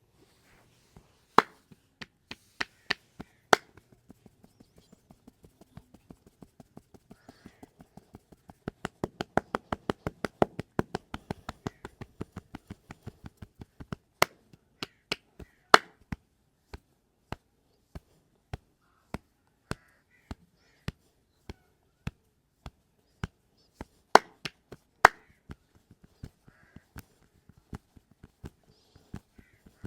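Sharp hand smacks of a percussive massage, the masseur chopping and slapping with his hands. They come scattered at first, then as a fast run of strokes for several seconds, then as evenly spaced smacks about two a second.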